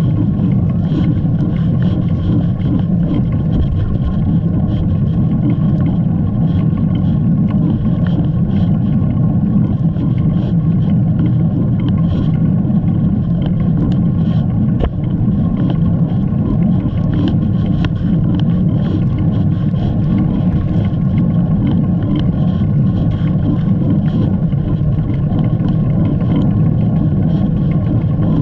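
Steady low rumble of wind buffeting the camera's microphone while cycling, loud and unbroken.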